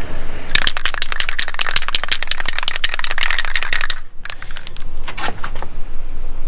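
Aerosol spray-paint can being shaken, its mixing ball rattling rapidly for about three and a half seconds before stopping abruptly; a few lighter clicks follow.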